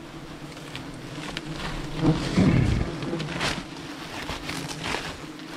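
Wasps buzzing steadily at close range, with crackling and scraping as papery nest comb is pulled off and handled. A louder rustling stretch comes about two seconds in.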